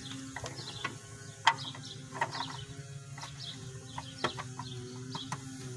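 Scattered light clicks and knocks of a valve cover and its new gasket being handled and seated onto a small-block V8's cylinder head, over a faint steady hum.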